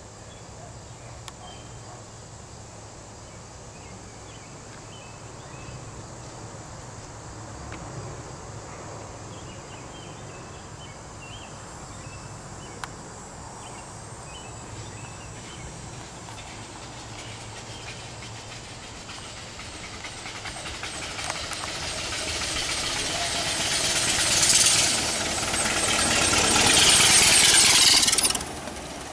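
A 1902-style Loco Cycle steam motorcycle approaching and passing close, the hiss of its steam exhaust growing steadily louder over the last several seconds, then cutting off suddenly near the end.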